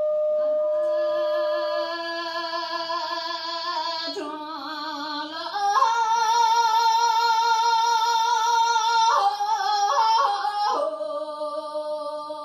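A woman sings a Kham Tibetan folk song unaccompanied, drawing out the syllables "Ah... Drung... Yo" in long held notes with a wide vibrato. About halfway she climbs to a high, loud held note, then ornaments down to a lower sustained note. In the first two seconds a side-blown wooden flute's held note overlaps her entry and then stops.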